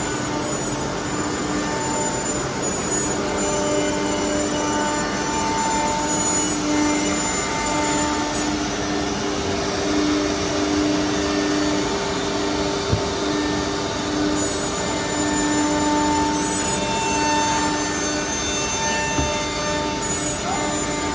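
CNC nesting router with four spindle heads and its dust extraction running in a woodworking shop: a continuous rush of machine noise with steady whining tones that come and go, and one short knock partway through.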